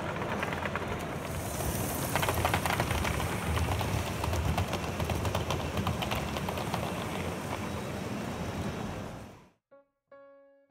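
Gauge 1 model trains running on a show layout: a steady rumble with rapid clicking of wheels over the track, louder about two seconds in. The sound cuts off suddenly near the end and a few soft piano notes begin.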